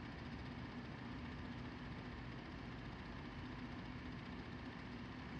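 Steady background hum with a faint even hiss and a constant low drone; nothing else happens.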